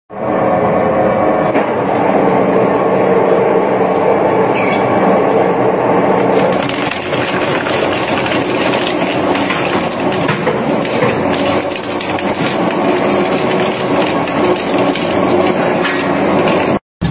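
Industrial shredder's hooked cutter discs crushing and snapping plastic items: a dense, continuous run of cracking and crunching, a little louder in the first six seconds.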